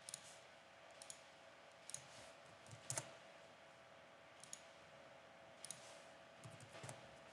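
Computer mouse clicks about a second apart, with a quick cluster of clicks and key presses near the end, over a faint steady hum.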